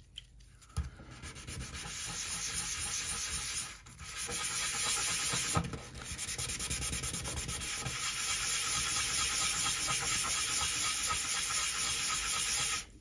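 A small plastic model lifeboat hull wet-sanded by hand in circular strokes on 800-grit abrasive paper: a steady gritty rubbing hiss. It breaks off briefly about four seconds in, with a single small tap a little later, and stops suddenly near the end.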